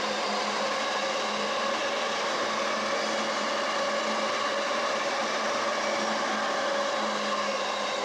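A Yamanote Line electric train running past at the level crossing: a steady rolling noise carrying several steady tones, holding an even level throughout.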